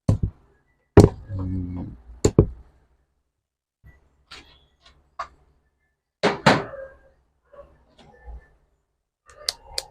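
Sharp knocks and clunks of parts and tools being handled on a workbench: one at the start, a loud one about a second in followed by a brief low buzz, another just after two seconds, and a double knock around six seconds in.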